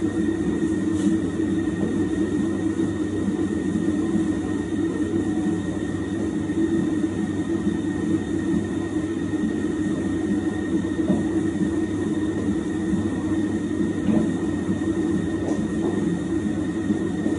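Electric mixer running steadily as it works a large batch of shortbread dough, a constant low churning with a thin steady hum of the motor above it.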